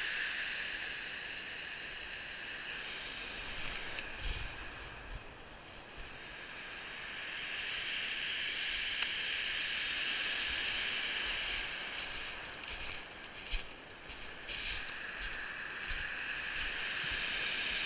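Waves breaking and washing back over a steep shingle beach, a steady hiss that swells and ebbs. A cluster of short crunches and knocks a little past the middle, footsteps on the pebbles.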